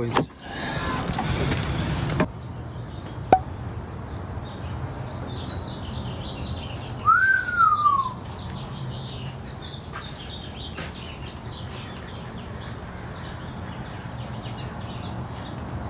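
Small birds chirping in the background over a steady low hum, with one louder whistle that rises and then falls about seven seconds in. A rushing noise at the start cuts off abruptly about two seconds in.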